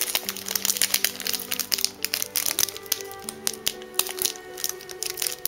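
Plastic snack wrapper crinkling and crackling in irregular sharp bursts as it is opened by hand, over background music with held notes.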